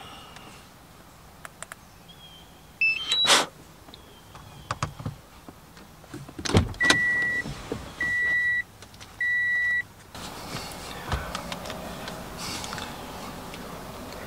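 Handling noises in a car: a short run of rising high tones ending in a loud click, a thud, then three long, evenly spaced electronic beeps at one pitch. After the beeps a steady background noise comes up.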